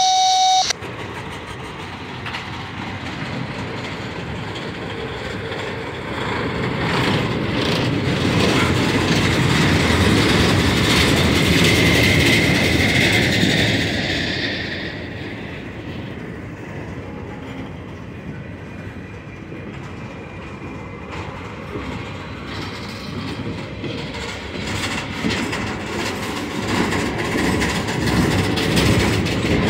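Rail-train flatcars rolling slowly past, their wheels clicking over the rail joints. The rolling gets louder toward the middle, with a faint high wheel squeal, then eases off.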